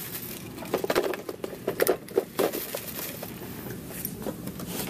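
Handling noise: plastic bags crinkling and rustling, with scattered small clicks and knocks, as someone rummages through gear for pliers.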